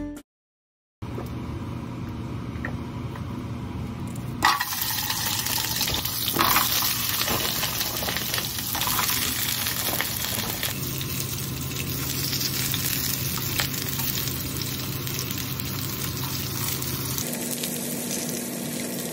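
Mandu dumplings sizzling as they fry in a nonstick frying pan, over a steady low hum. The sizzle jumps louder about four seconds in as more dumplings are put in the pan, with a few sharp knocks as they go in.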